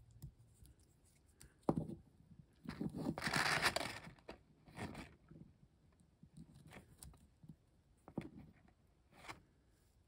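Hands handling a small plastic toy figure and its paper leaflet: a sharp click about two seconds in, a louder rustle for about a second after that, then scattered small clicks and rustles.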